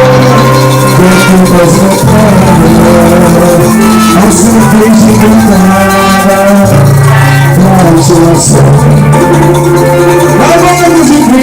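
Loud music with shaker rattles over held bass notes that step from one pitch to another.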